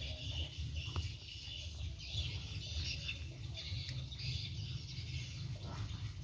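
Small birds chirping and twittering over a low steady rumble.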